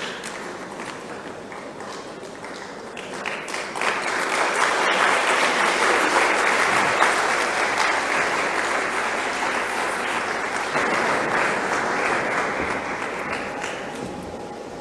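Audience applauding, building up about four seconds in and then slowly dying away near the end.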